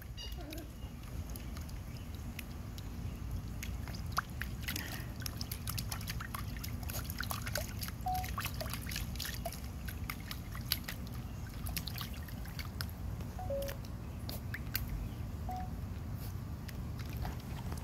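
Schnauzer puppy splashing with its head in a plastic bowl of water: irregular small splashes, slops and drips throughout.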